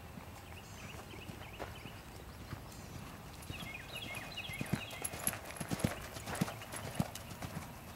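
Hoofbeats of a grey horse on sand arena footing: dull, irregular thuds, faint at first, growing louder about halfway through as the horse passes close.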